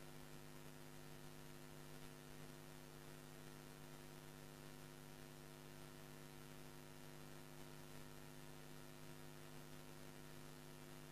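Near silence with a faint, steady electrical mains hum from the studio's audio equipment.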